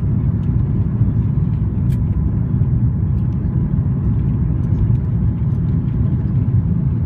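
Cabin noise of an Airbus A340-300 on final approach: a steady, loud low rumble of the engines and air rushing past the airframe, heard inside the passenger cabin.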